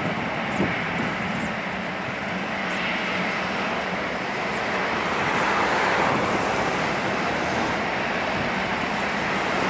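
A Boeing C-40C (737-700) jet's CFM56 turbofan engines running at low taxi power: a steady rushing roar that swells slightly about five to six seconds in.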